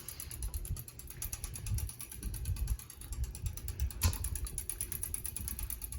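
Hunter Westminster ceiling fan running on medium speed, with a fast, even mechanical ticking over a low fluttering rumble. A single sharp click comes about four seconds in.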